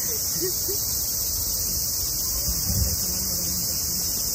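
Steady, high-pitched hiss of a summer cicada chorus, unchanging throughout, with faint voices in the background.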